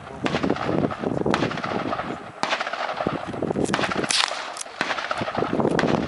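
Gunfire at a shooting range: about eight sharp gunshots at irregular intervals, two of them close together a little after the middle, each followed by a short ringing echo.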